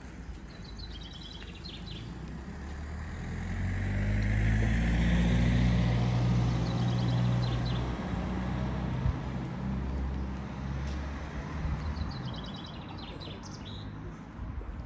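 A car driving by slowly on the street, its engine and tyre noise swelling over the first few seconds and fading away again, with short bursts of bird chirps three times.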